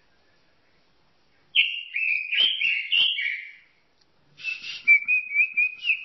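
A robin singing: two phrases of clear, high whistled notes, the first a quick run of varied notes, the second a run of short, repeated notes.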